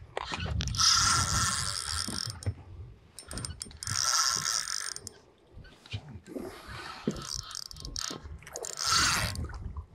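Fishing reel ratcheting and whirring in four bursts as a hooked fish is fought on a bent rod.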